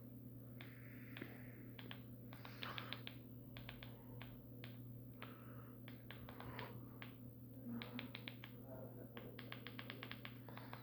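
Faint clicks in short quick runs of three to six, like a mobile phone's keypad buttons being pressed while stepping through its menus, over a steady low electrical hum.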